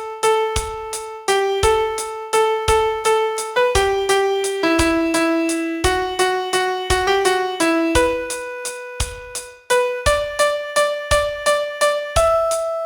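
Piano playing a slow single-note melody in 3/8 time over a steady click beat, about three clicks a second, keeping time for rhythm practice.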